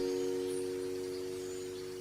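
Background worship song ending: its final chord is held and fades slowly away.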